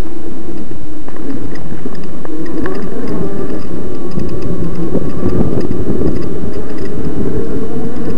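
Electric mountain bike riding a rough dirt trail: loud wind rumble on the microphone and scattered jolting rattles, over a faint wavering whine from the motor.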